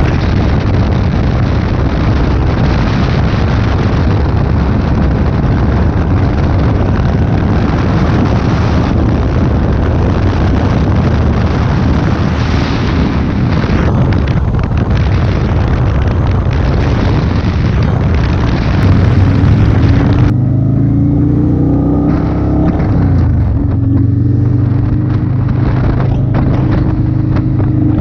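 Motorcycle ridden at speed, heavy wind rush on the microphone over the engine. About twenty seconds in the wind noise drops away and the engine is heard clearly, its pitch falling as the bike slows, then holding steady.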